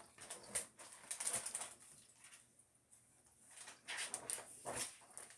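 Paper rustling and handling noise as a picture book is moved and put down, in two spells of irregular rustles.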